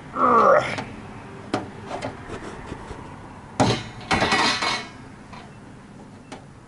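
Metal parts of a stainless steel ultrasonic cleaner being handled: a short squeak at the start, a few light knocks, then a loud stretch of metallic clattering and knocking just before the middle.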